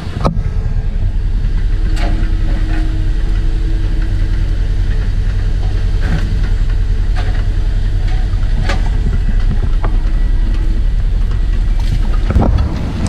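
Engine running steadily with a deep drone, with a few short sharp knocks spread through it.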